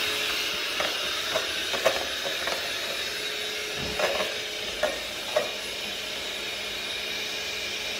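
Electric hand mixer running steadily, its beaters whipping evaporated milk in a plastic bowl as it thickens to a cream. A few light clicks sound over the motor in the first half.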